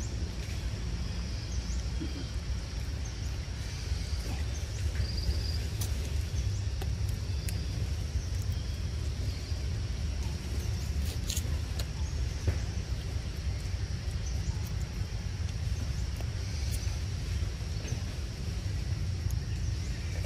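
Steady low rumble of outdoor background noise, with a faint high-pitched hiss carrying short blips and a few sharp clicks, the loudest about eleven and twelve and a half seconds in.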